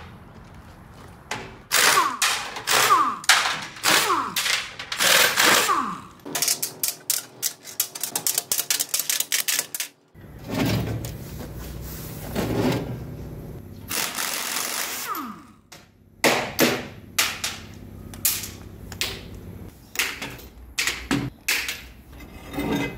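Pneumatic impact wrench (rattle gun) undoing the plough bolts that hold a grader blade's cutting edges, in several bursts of rapid hammering with short gaps between, along with metal knocks and clanks of steel on steel.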